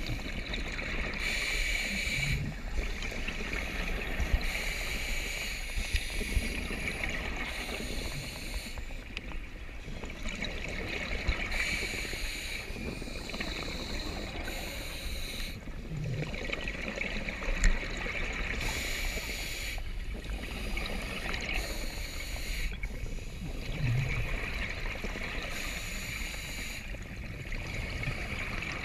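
Scuba diver breathing through a regulator underwater: a hiss with each inhalation every four to five seconds, alternating with short low bursts of exhaled bubbles.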